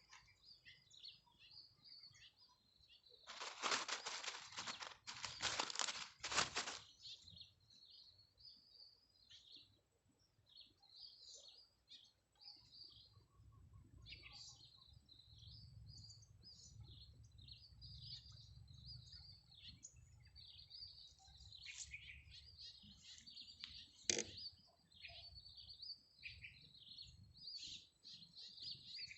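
Faint small birds chirping and calling continuously. Twice near the start there is a short rush of louder noise, and a single sharp click comes about 24 seconds in.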